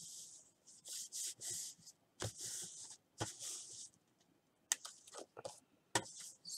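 Paper being handled in card-making: a series of short, hissy rustling and rubbing strokes, with a couple of sharp clicks in the second half.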